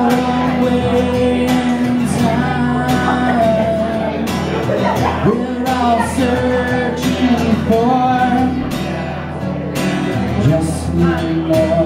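A man singing while strumming an acoustic guitar: a live solo acoustic song.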